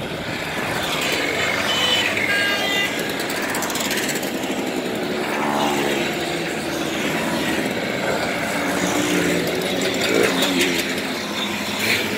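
A stream of Simson two-stroke mopeds and Schwalbe scooters riding past one after another, their small engines running steadily and changing pitch as each one goes by.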